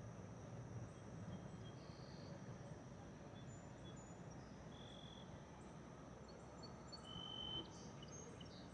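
Faint outdoor ambience: a low steady murmur with scattered short, high chirps, the loudest about seven seconds in.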